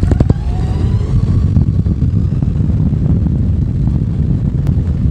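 Zero FX electric motorcycle riding over a dirt forest track: a dense low rumble, with the electric motor's faint whine rising in pitch during the first second or so and a few sharp knocks from the bumpy ground.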